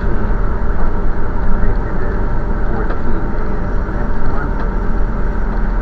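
Vehicle on the road: a steady, loud low rumble of engine and road noise.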